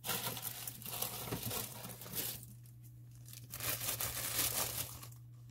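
Crinkling and rustling of plastic as disposable plastic cups are handled, in two stretches with a short lull in the middle.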